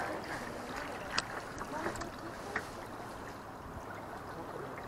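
Kayak paddling: water splashing off the paddle blades and lapping against the kayak's hull, with three sharp clicks in the first three seconds.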